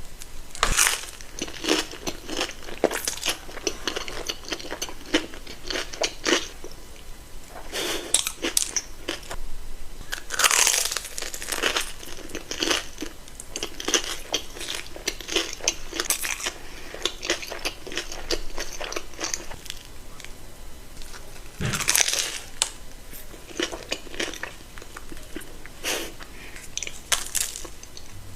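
Close-up crunching bites into a Korean corn dog's crisp fried coating, followed by chewing. The bites and chews come in a steady string, with several loud crunches.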